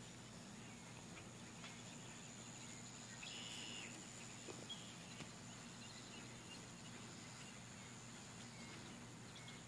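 Faint outdoor evening ambience: a steady high insect drone with a low steady hum beneath it, and a short bird call about three and a half seconds in.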